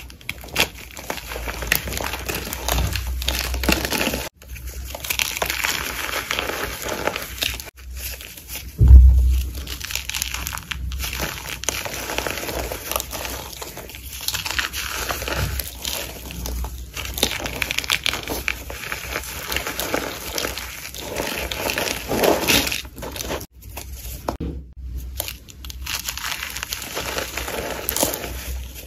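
Gym chalk and cornstarch being crushed and crumbled, giving continuous crunching and crackling. A low thump about nine seconds in is the loudest sound.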